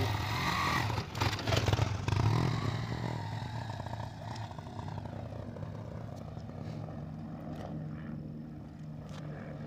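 Motorcycle engine revving as it pulls away, with some clatter, then getting fainter to a steady low hum about four seconds in as it rides off.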